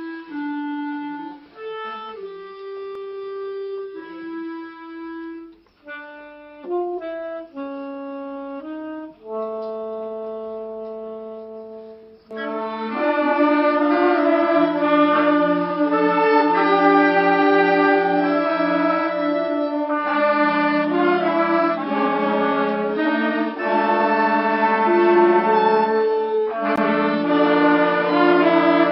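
Youth wind orchestra rehearsing. For about twelve seconds a single melody line of held notes plays, then the full band of woodwinds, brass and strings comes in much louder.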